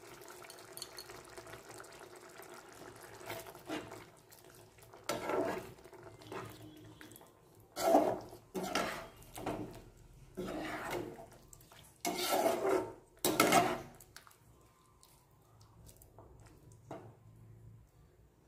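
A spatula scraping and stirring through thick soyabean and potato curry in a pan, mixing in the garam masala just added. It comes as a run of short scraping strokes, loudest about halfway through, and dies away a few seconds before the end.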